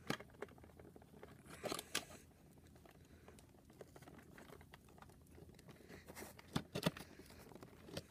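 Scissors snipping at the ties that hold a toy blaster in its cardboard box, with the packaging rustling. Faint, with a few sharp clicks about two seconds in and again near the end.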